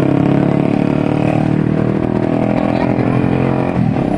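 Tour bus's telolet horn, a multi-trumpet musical air horn, playing a loud tune of held notes that shift in pitch every second or so, with a brief break near the end.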